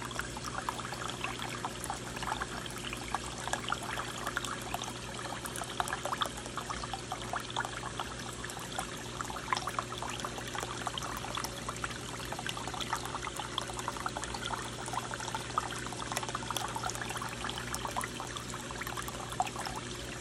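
Reef aquarium water circulation: a continuous trickle and splash of falling water, with a low steady hum beneath it.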